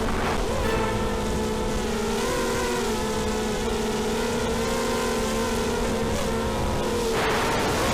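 ZMR250 quadcopter's brushless motors and propellers whining at a steady, slightly wavering pitch in flight. About seven seconds in, a louder rushing noise joins the whine.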